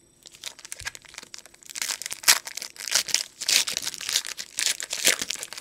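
Foil wrapper of a 2022 Panini Absolute Football trading-card pack being torn open and crinkled by hand: a dense run of crackles, with the sharpest tear a little over two seconds in.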